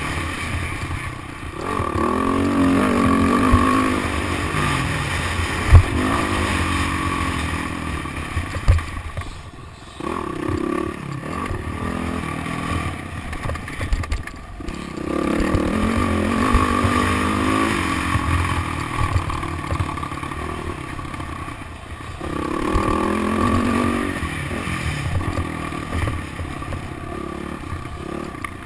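Motocross dirt bike engine heard up close from an onboard camera, revving up in repeated rising surges and backing off between them, with sharp knocks about six and nine seconds in.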